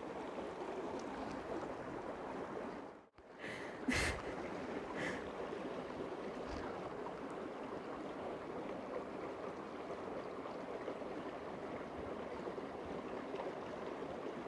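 Spring water running steadily over rocks, a continuous rushing sound. It cuts out briefly about three seconds in, then a single click follows and the flow sound resumes.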